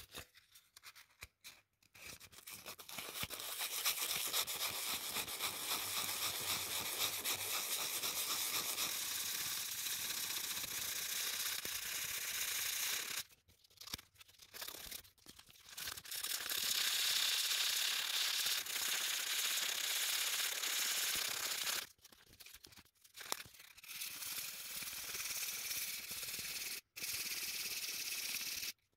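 Fine emery paper rubbed in small circles over a plexiglass (acrylic) watch crystal, a steady scratchy rasp as the deep scratches are sanded out. It stops briefly about halfway through and twice more near the end.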